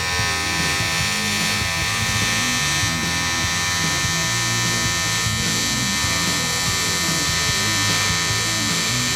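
Steady, high electric buzz from a metalworking tool running without a break, under background music.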